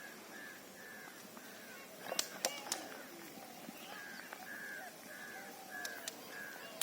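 A bird calling repeatedly outdoors, a run of short arched notes about two or three a second, pausing in the middle and then resuming. A few sharp clicks come about two seconds in.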